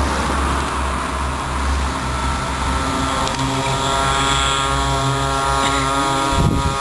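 The small two-stroke engine of a 49cc pocket bike runs at a steady high-pitched buzz. It stands out clearly from about three seconds in, over a low rumble, with a few low thumps near the end.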